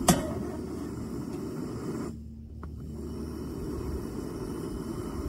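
Single-burner propane camp stove burning with a steady low rush of flame under a pot of water. There is one sharp click just after the start.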